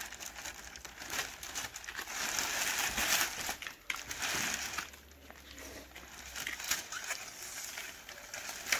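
Clear plastic packaging wrap crinkling and rustling in uneven spells as it is cut with scissors and pulled away by hand.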